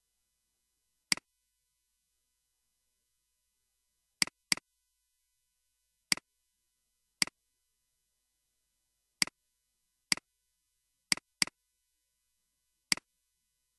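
Computer mouse clicks: ten short, sharp clicks spaced irregularly, two of them quick double-clicks, with dead silence between.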